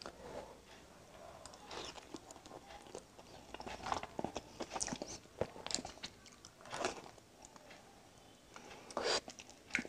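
Close-up eating of egg noodles: noodle strands slurped into the mouth in several short bursts, with wet chewing and light clicks in between.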